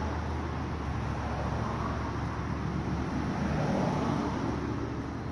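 Steady low outdoor rumble with an even hiss, with no distinct events.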